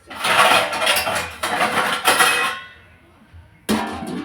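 Metal cookware clattering and scraping in three loud pulses, then one sharp clank near the end as a covering is set down over the kadai.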